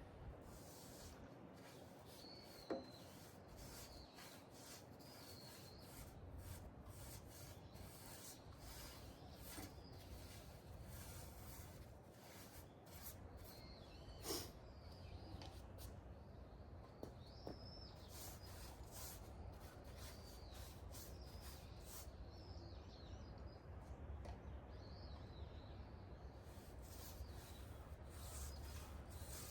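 Repeated rubbing strokes on wood, with two sharp knocks, one early and one about halfway, and birds chirping in the background.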